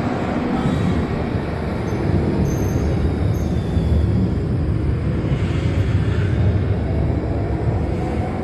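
Premetro trams running through an underground station, a steady low rumble of wheels and motors that swells toward the middle as a tram arrives at the platform.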